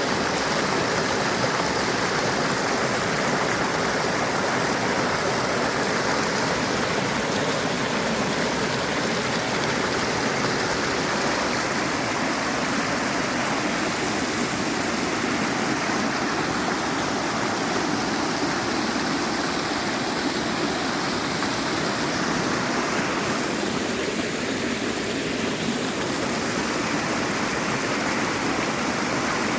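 Flowing stream water rushing and babbling over stones, a steady even rush with no breaks.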